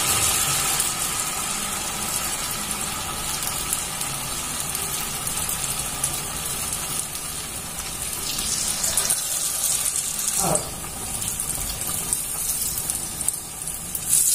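Batter-coated sukhiyan balls deep-frying in hot oil in a kadai: a steady, bright hissing sizzle of oil bubbling around the balls.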